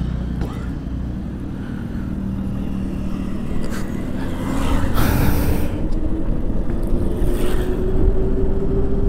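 Ola S1 Pro Gen 2 electric scooter being ridden: a faint motor whine rises slowly and steadily in pitch from about three seconds in as it speeds up, over steady wind and road rumble, with brief swells of wind hiss.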